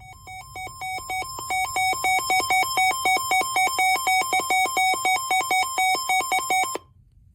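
Emergency alert attention tone: a high and a low tone alternating, about four high notes a second. It swells up over the first two seconds, holds steady, then cuts off suddenly.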